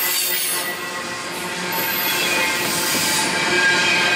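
Double-stack intermodal container train rolling past, the cars' steel wheels squealing with several steady high-pitched tones over the rumble of the train.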